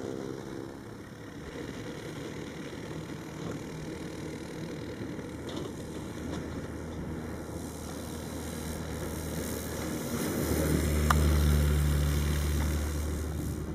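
The 26 hp electric motor and propeller of a Luciole MC30E single-seat electric aircraft make a steady pitched drone during the takeoff roll. The drone grows louder and is loudest about eleven seconds in, as the plane passes close.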